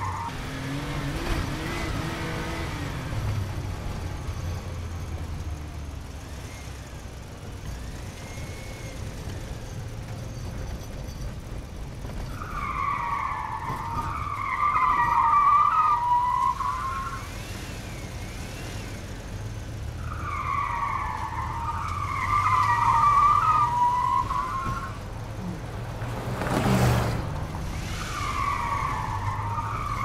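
Car tyres squealing in long wavering screeches a few seconds each, coming back about every eight seconds, over a steady low engine rumble. A single sharp knock a few seconds before the end.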